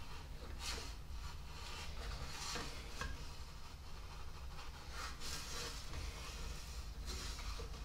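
Metal repair tool rubbing and scraping along a brass trumpet bell in about four slow strokes, as dents are worked out and the bell is brought back to round.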